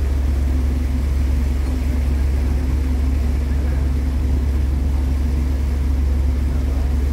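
Steady low drone of a river cruise boat's engine, heard from on board, with a hum that holds one pitch throughout.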